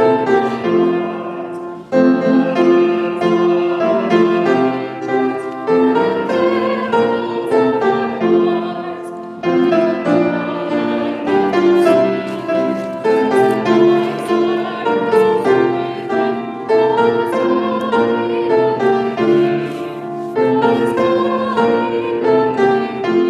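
Piano playing a hymn tune in full chords, in three-beat time, through one verse.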